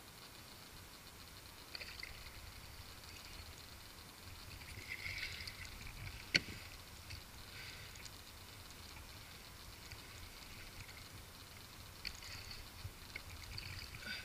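Water splashing and sloshing in short, irregular bursts around a kayak while a hooked redfish is fought on a bent spinning rod, with one sharp click about six seconds in.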